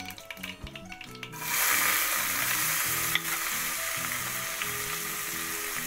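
Chopped onions dropped into hot ghee with popped mustard seeds in an aluminium pressure cooker. They start sizzling loudly about a second and a half in, and the sizzle then carries on steadily. There is a single click a little after three seconds, with soft background music underneath.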